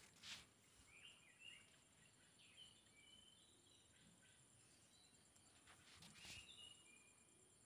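Faint outdoor ambience: small birds chirping now and then over a steady high insect drone. Brief rustling noises come right at the start and again about six seconds in.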